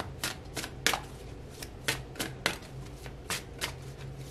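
A deck of tarot cards being shuffled by hand, the cards slapping together in a run of sharp, irregular clicks, about two or three a second.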